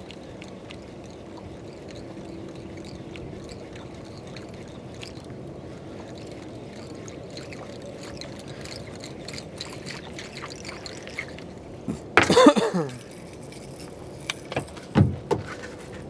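Small waves lapping and trickling against a small boat's hull, with scattered light clicks. About twelve seconds in comes a loud brief sound falling in pitch, and a sharp knock follows shortly before the end.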